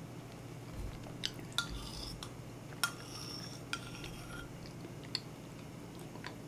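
Metal spoon clinking and scraping against a ceramic bowl while scooping porridge: about five sharp clinks, each with a brief ring, over a faint steady low hum.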